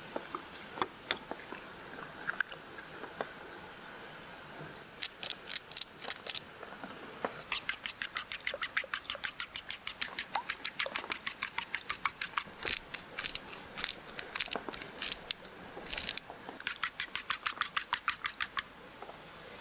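Eggs being beaten with chopsticks in a wooden bowl: quick, even clicking of the chopsticks against the bowl, about six strokes a second, in runs of a few seconds with short pauses. A few separate taps come first, as another egg is cracked.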